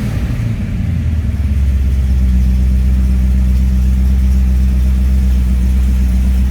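HDT-built 304 cubic inch (4.9-litre) V8 of a VK Group A Commodore running unevenly at first, then settling into a steady idle about two seconds in.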